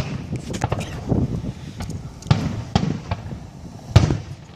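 Fireworks going off: a scattered string of sharp bangs and crackles, some louder and nearer than others, the loudest about four seconds in.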